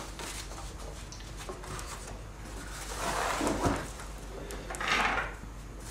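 Sheets of drawing paper being handled and slid across a table: two soft rustling swells, one about three seconds in and a shorter one near the end.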